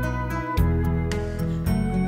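Calm instrumental background music with sustained notes over a steady bass, changing chord about every half second to a second.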